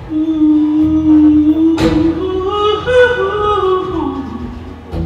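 Live band music: one long held melody note, then a line that climbs and falls over a low steady accompaniment, with a sharp percussive hit about two seconds in.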